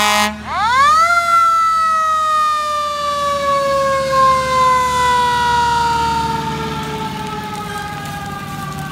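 Fire truck siren winding up quickly about half a second in, then winding slowly down, its pitch falling steadily and fading. An air horn blast cuts off just as it begins.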